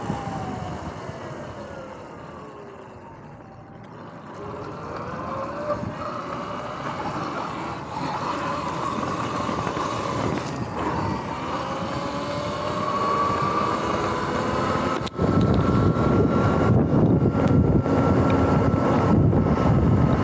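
Sur-Ron X electric dirt bike's motor and drivetrain whining, the pitch falling as the bike slows, then rising and holding as it speeds up again. About three-quarters of the way through, a loud rush of wind on the microphone and ride rumble comes in suddenly and becomes the loudest sound.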